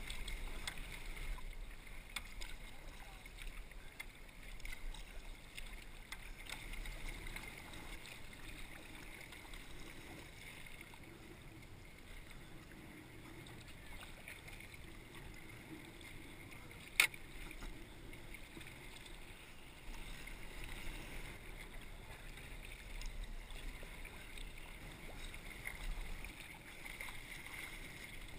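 Water lapping and splashing against a sea kayak's hull as it is paddled through light chop, with the dip of paddle strokes. One sharp click about halfway through.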